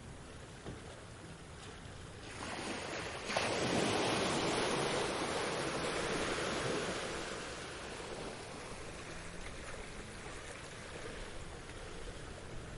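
Sea waves on a beach: a quiet wash, then a wave breaking suddenly about a third of the way in, its surf hissing loudly for a few seconds before slowly fading as the water runs back.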